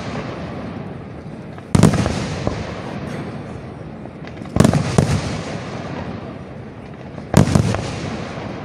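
Aerial firework shells bursting at a display: a sharp bang about every two to three seconds, two close together near the middle and again near the end, each followed by a fading rumble.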